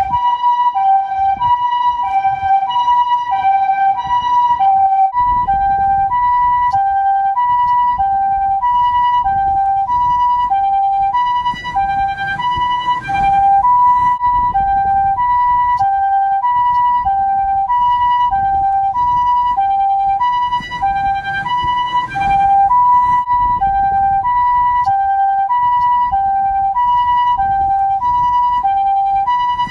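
Japanese ambulance two-tone electronic siren sounding the hi-lo "pii-poo" pattern: a high note and a lower note alternating evenly, each about half a second long. Low road rumble runs beneath.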